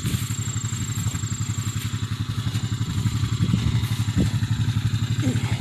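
Engine idling with a steady, even, rapid low throb.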